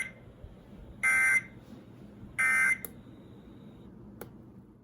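Weather radio sounding the end-of-message SAME data bursts that close an Emergency Alert System warning: the tail of one short buzzy burst, then two more about a second and two and a half seconds in. A faint click follows near the end.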